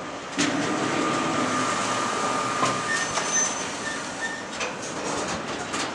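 Container freight train's flat wagons rolling past at close range, wheels clicking over the rail joints. A brief high squeal rings out from about half a second in.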